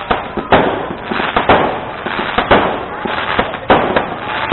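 Fireworks going off in a dense barrage: about seven loud bangs, roughly one every half second to second, over continuous crackling.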